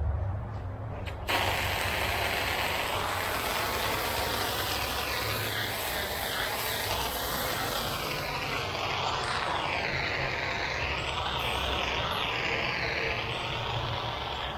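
Water spray hissing onto a concrete deck, starting abruptly about a second in and running steadily, its tone wavering as the spray moves, over a low engine hum.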